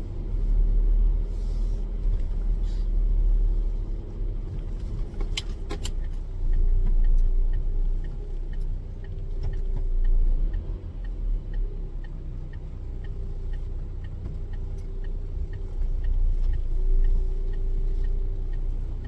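Renault truck's diesel engine running at low speed, heard from inside the cab as a steady low rumble while the truck creeps along. A light, regular ticking runs for a few seconds midway, and there are a couple of sharp clicks just before it.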